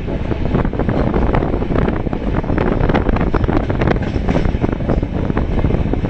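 Moving passenger train heard from an open coach door or window: wheels rattling and clicking on the rails, with wind buffeting the microphone.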